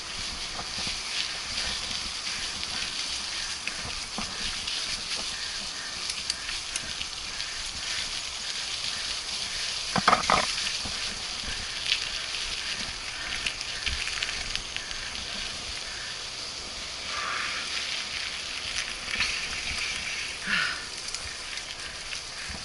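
Mountain bike rolling along a wet dirt singletrack: a steady crackling hiss of tyres and bike, with scattered clicks and rattles over the bumps and one louder short sound about ten seconds in.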